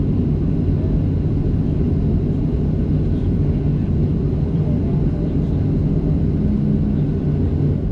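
Steady low rumble of a Boeing 737 with its engines running, heard from inside the cabin.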